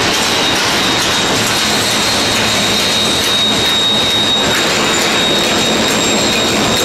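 Automatic pillow-type packaging machine running at about 135 packs a minute: a loud, steady mechanical clatter with a thin high whine over it.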